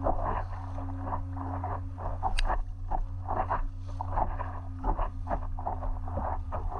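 Water splashing and lapping in short irregular spurts around an inflatable paddleboard, over a steady low hum. One sharp click about two and a half seconds in.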